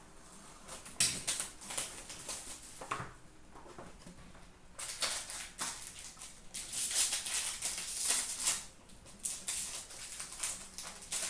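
A cardboard trading-card box being opened by hand and a clear plastic pack wrapper torn and crinkled: irregular bursts of rustling and crackling, busiest from about five to nine seconds in.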